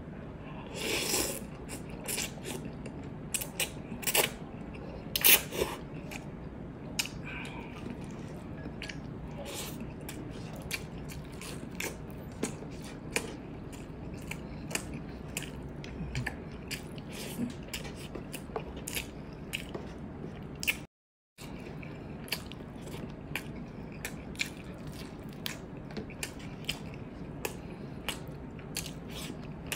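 Close-miked eating sounds: a noodle slurp about a second in, then chewing with frequent short, sharp mouth clicks and smacks. The sound cuts out briefly about two-thirds of the way through.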